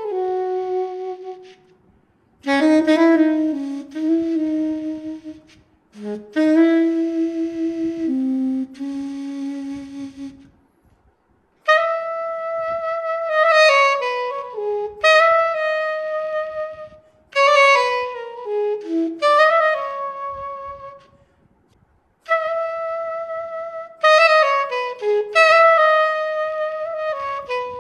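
Soprano saxophone sound from the VHorns sample library, played live on an EWI wind controller: a solo line of melodic phrases with brief pauses about 2, 6 and 11 seconds in, the later phrases mostly quick falling runs.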